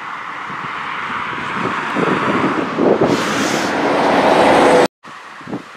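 Single-engine Cessna's piston engine and propeller at takeoff power, growing steadily louder as the plane rolls past, with wind buffeting the microphone. The sound cuts off abruptly about five seconds in, and quieter gusty wind follows.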